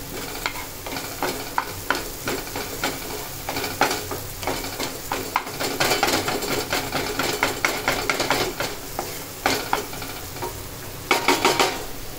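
Chopped onions and tomatoes sizzling in oil in a nonstick frying pan while a spatula stirs and scrapes them across the pan, in irregular strokes. A quick cluster of clattering strokes comes near the end.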